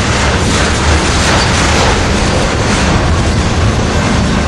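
Freight train of tank cars rolling past close by: loud, steady rumble and rattle of wheels on the rails.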